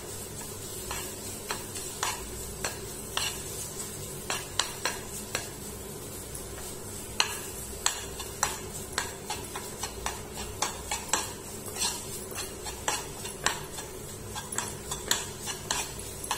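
A metal spoon stirring and scraping milk that is thickening into khoa in a kadhai, with irregular clicks and scrapes of the spoon against the pan.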